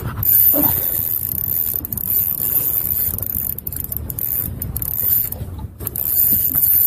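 Wind buffeting the microphone on an open boat at sea, an uneven low rumble, while a spinning reel is worked by hand.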